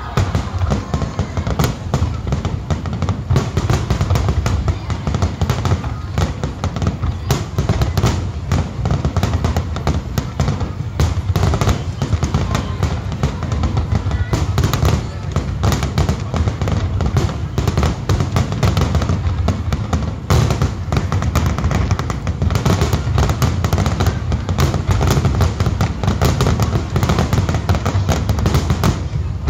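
Aerial fireworks going off in a dense, continuous barrage: rapid booms and crackles overlapping almost without a pause.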